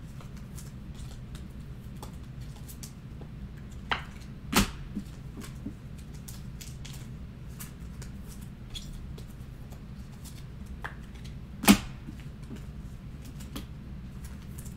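Scattered light clicks and taps over a low steady hum, with a few sharper knocks about four seconds in, just after, and the loudest near the end.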